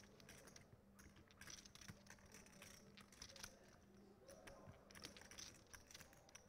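Faint, irregular clicking of poker chips being handled at the table, over a faint low hum.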